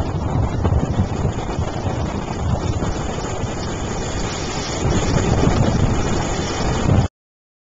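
Wind buffeting the microphone over surf washing onto a sandy beach, a steady rumbling noise that cuts off suddenly about seven seconds in.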